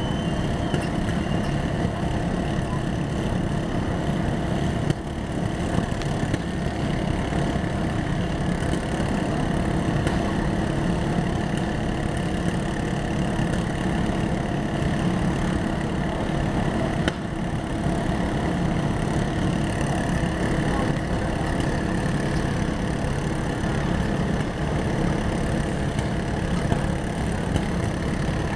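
Several riding lawn mower engines idling together in a steady, continuous mixed running, with no revving.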